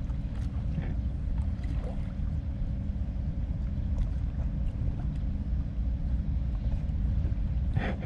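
Steady low rumble of harbour ambience, with wind on the microphone. A few faint ticks come through as the fishing line and a small metal jig are handled, and a short rustle sounds near the end.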